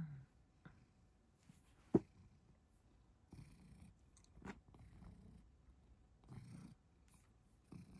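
Domestic cat purring faintly in slow pulses, about one every second and a half, with a sharp click about two seconds in.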